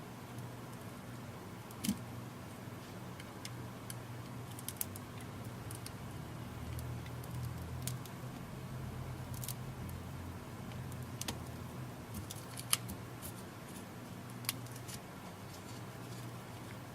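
Scattered light clicks and scrapes of hand tools prying the glued screen off a Samsung Galaxy Tab 3 tablet, over a steady low hum.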